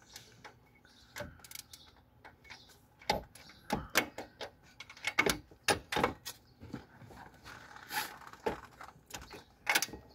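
Irregular metallic clanks and clicks of hand tools, sockets and a ratchet being handled and fitted against a Ford 5.0 V8's cylinder head while its head bolts are being removed.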